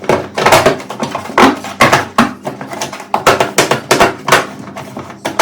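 Irregular clatter and knocking of metal parts, a few sharp strikes a second, over a steady low hum.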